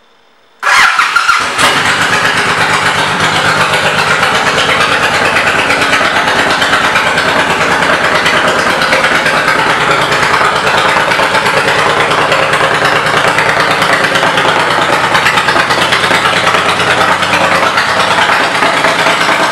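2002 Honda VTX1800C's V-twin engine starting about a second in, then idling steadily through its aftermarket Vance & Hines exhaust pipes.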